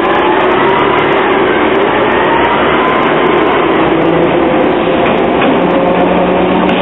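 A Hong Kong double-deck electric tram running along street track and passing close by, with a faint whine rising slowly in pitch over steady traffic noise.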